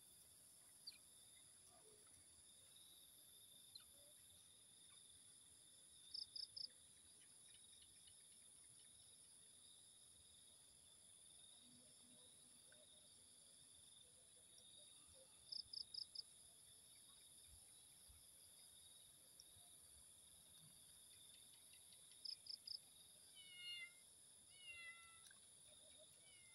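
Faint steady insect drone, broken by a few quick chirps in sets of three or four, and near the end by several short, high, falling squeaks from a small animal.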